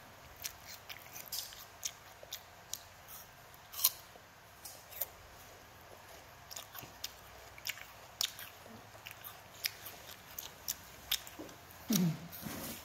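A child chewing and biting slices of crisp pear close to the microphone: irregular small crunching clicks. Near the end, a short low hum-like vocal sound that falls in pitch.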